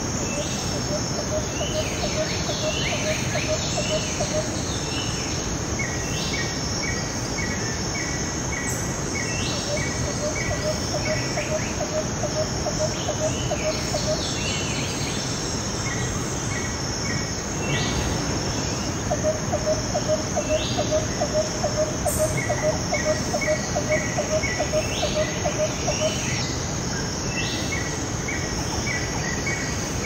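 A mountain stream running steadily over rocks, with birds calling: repeated short chirps and falling whistled notes. A rapid, low pulsing trill comes in three runs of several seconds, loudest in the last one, over a steady high insect buzz.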